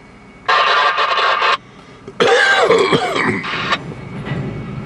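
Freight train of covered hopper cars rolling past. Two loud bursts of noise start and stop abruptly, the second with a falling, squeal-like tone in it.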